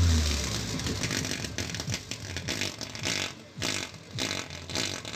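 F&D A521X subwoofer playing deep bass beats, each note falling in pitch. Air puffing out of its bass port makes a plastic bag held over the port flutter and crackle.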